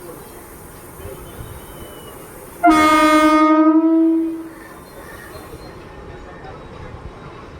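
Siemens electric multiple unit (EMU) local train sounding its horn: one loud, steady-pitched blast of about a second and a half that starts suddenly about a third of the way in and then fades away, over the train's steady running rumble.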